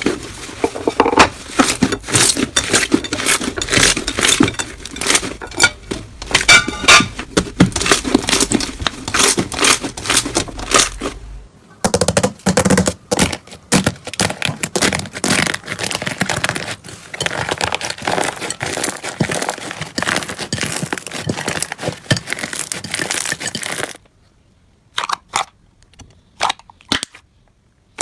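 Slime being squeezed, poked and stretched by hand, giving dense, irregular crackling and popping clicks. The texture changes abruptly about halfway through, and near the end it drops to a few separate pops.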